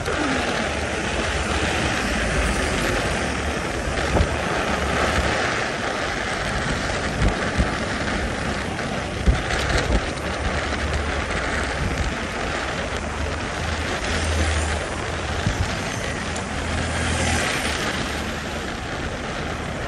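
Steady wind rush on the microphone and road noise while riding an electric scooter along a city street, with a low rumble and a few brief knocks from bumps in the road.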